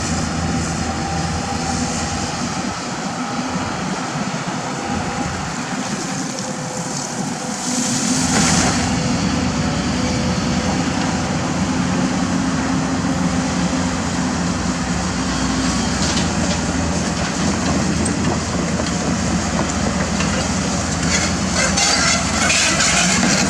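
Diesel engine of heavy earthmoving equipment running steadily, then working harder and louder about eight seconds in, with a short hiss soon after. Clattering metallic clanks come near the end.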